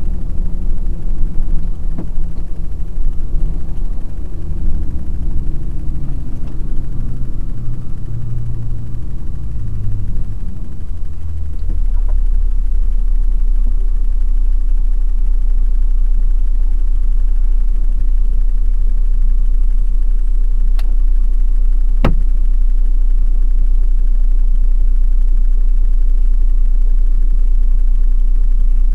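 Truck engine heard from inside the cab, its note falling through the first ten seconds or so as the truck slows, then settling into a steady low drone. Two sharp clicks come about three-quarters of the way through.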